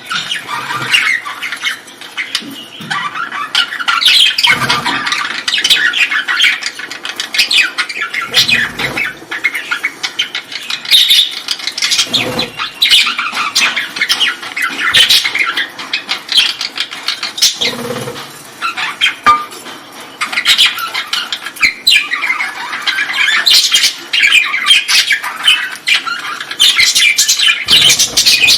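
A colony of caged birds chattering and squawking together, many short overlapping calls without a pause.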